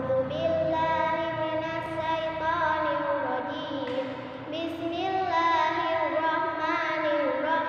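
A young girl's solo voice singing long, wavering, ornamented notes in a chant-like melody, with a short break about halfway through.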